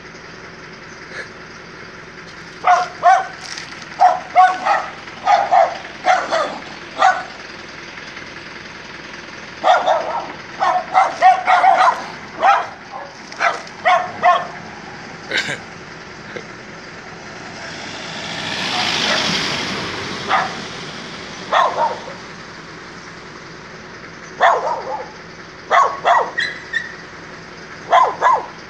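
A group of dogs barking in quick volleys of short barks, with pauses between the volleys. About two-thirds of the way through, a vehicle passes by, its noise swelling and fading.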